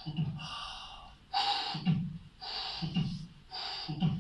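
Heart sounds heard through a stethoscope: a low thud about once a second, each preceded by a blowing, hissing murmur. This is a tricuspid regurgitation murmur, which varies with breathing.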